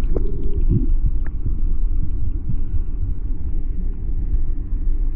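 Stream water rushing past an underwater camera, heard as a steady, muffled rumble with a few faint clicks.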